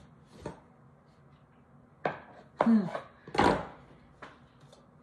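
Metal baking pans and kitchen utensils handled on a countertop: a soft click about half a second in, then a cluster of sharp knocks and scrapes two to three and a half seconds in, and one more light click after that.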